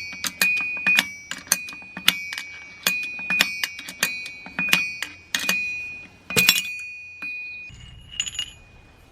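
A steel part of a car transmission struck repeatedly, metal on metal, about one to two blows a second, each ringing out with a clear bell-like tone. The hardest blow falls about six and a half seconds in; the strikes stop shortly after, followed by a brief light clink.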